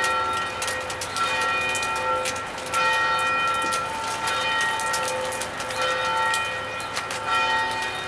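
Church bells ringing in a steady peal, a fresh strike swelling a little more than once a second over the ringing of the last, with sharp little ticks of rain dripping.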